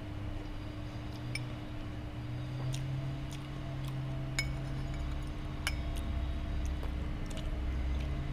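Scattered light clinks of eating utensils against dishes during a meal, a few seconds apart, over a steady low hum.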